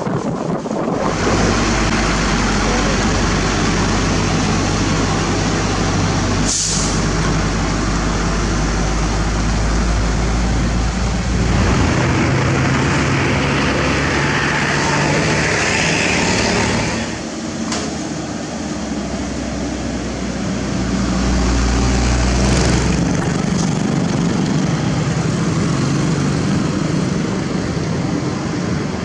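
Heavy diesel truck engine running on the road with traffic around it, from an Isuzu Giga self loader truck carrying a dump truck. A hiss of air stands out in the middle.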